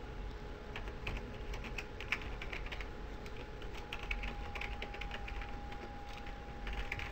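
Computer keyboard typing: a quick, irregular run of key clicks that starts about a second in.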